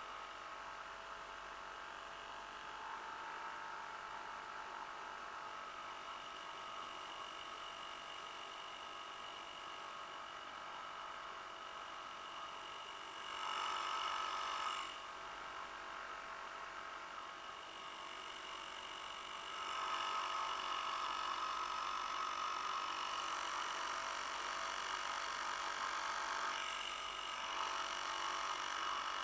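Small vintage Johnson 2 HP Seahorse two-stroke outboard motor running steadily while pushing a canoe along. It has a buzzing hum and gets louder briefly about 13 seconds in and again from about 20 seconds on.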